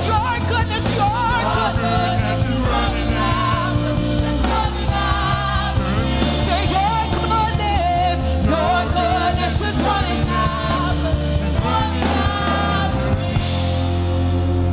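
Live church praise-band music with a steady bass and a melodic lead line, and some singing over it.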